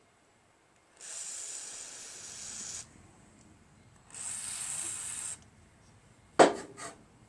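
Aerosol spray can hissing in two bursts, the first about a second in and the second about four seconds in, then a sharp click with a few lighter clicks near the end.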